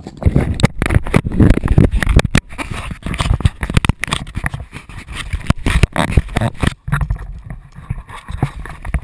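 Camera handling noise close on the microphone: a rapid string of knocks, rubs and bumps as the camera is gripped and clamped in place.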